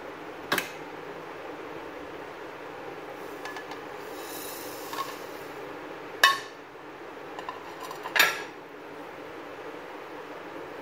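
Whole spice seeds tipped from a china plate into a dry nonstick frying pan: sharp clinks and knocks of plate and pan, three of them loud (just after the start, about six seconds in and about eight seconds in), with a brief rustle of scattering seeds around four seconds, over a steady background hiss.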